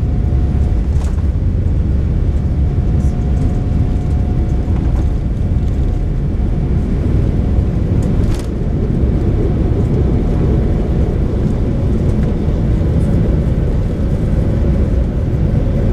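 Cabin noise of a Boeing 787-9 during its takeoff roll and liftoff: the GEnx-1B turbofans at takeoff thrust, a loud steady rumble heard over the wing, with a faint steady tone running through it. One brief knock comes about eight seconds in.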